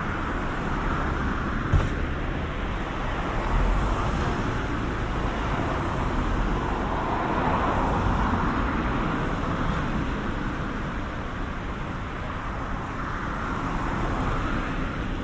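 Road traffic: cars passing on the street one after another, their tyre and engine noise swelling and fading. A single sharp click sounds about two seconds in.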